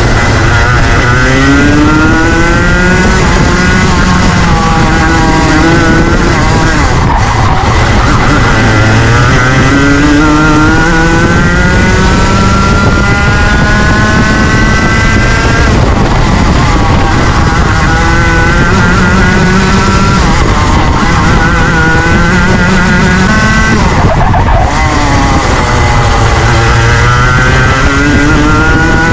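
Junior Rotax 125cc two-stroke kart engine at racing speed, its pitch climbing for several seconds at a time and dropping back before climbing again, about six times, over a constant noisy rush.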